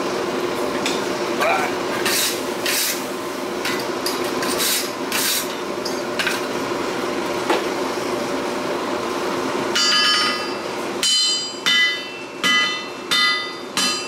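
Steady background hum with a few scuffs and knocks, then, from about ten seconds in, a hand hammer striking a red-hot 5160 steel bowie-knife blade on the anvil: a run of ringing metallic blows, about three every two seconds.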